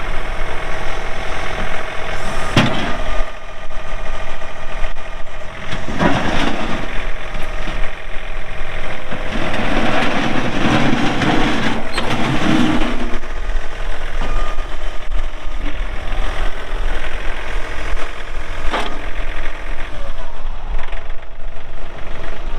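John Deere 3039R compact tractor's three-cylinder diesel engine running steadily while the tractor drives and works its front loader. The running grows louder and rougher for a few seconds in the middle, and a sharp knock comes twice, once early and once near the end.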